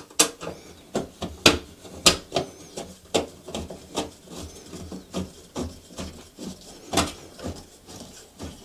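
Phillips screwdriver turning a screw into the sheet-metal housing of a bathroom exhaust fan: an irregular run of sharp clicks and small squeaky scrapes, about one or two a second, as the screw is driven in.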